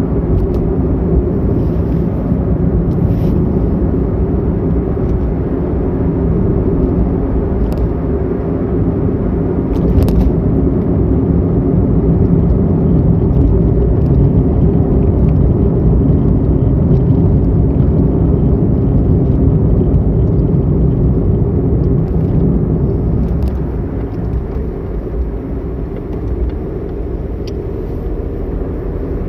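Car driving on an open road, heard from inside the cabin: a steady low rumble of engine and tyre noise, with a few faint ticks. It eases off a little near the end.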